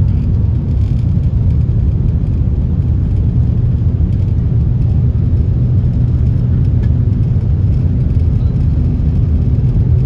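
Cabin noise of the L0 series superconducting maglev test train running levitated and accelerating past about 370 to 400 km/h: a steady low rumble.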